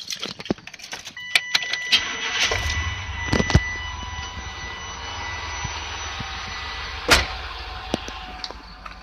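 Pickup truck engine started with the key: it catches about two and a half seconds in and settles to a steady idle through a new, fully welded muffler and tailpipe, running quietly. A sharp knock comes about seven seconds in.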